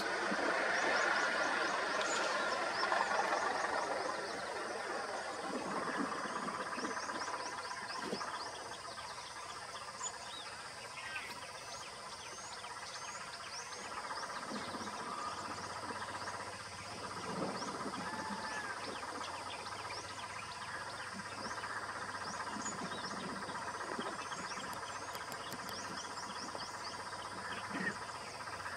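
Steady chorus of frogs and insects, many even, held tones together, with short high chirps repeating over it. A vehicle's engine noise dies away in the first few seconds.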